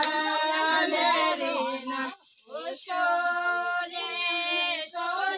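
A group of women singing a Kumaoni folk song together in long held notes. There is a short pause about two seconds in before the next line begins.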